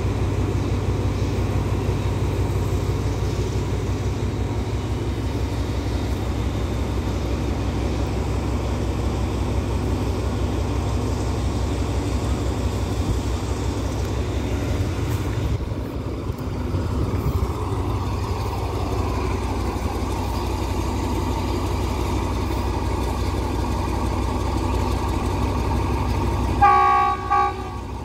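Steady low diesel engine rumble, then near the end a single short, loud blast of a diesel locomotive's horn.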